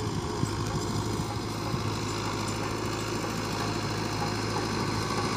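Fiat 640 tractor's four-cylinder diesel engine running steadily under load, pulling a 16-disc harrow through sand.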